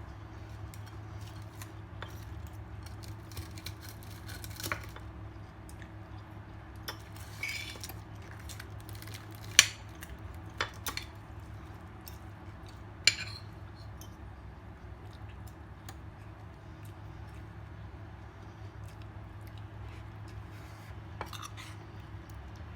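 Dishes and utensils clinking now and then during a meal: a handful of sharp clinks, the loudest about ten and thirteen seconds in, over a steady low hum.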